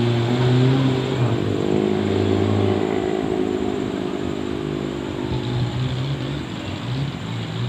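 Off-road jeep's engine running hard under load, its pitch rising and falling as it is revved through the terrain.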